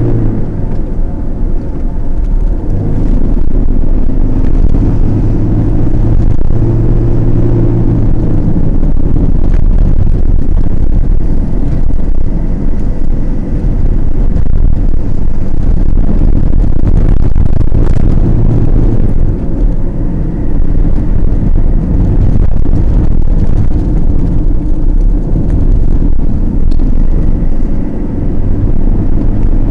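Car engine and road rumble heard from inside the cabin while driving, a loud, continuous low drone with the engine's hum coming and going as the speed changes.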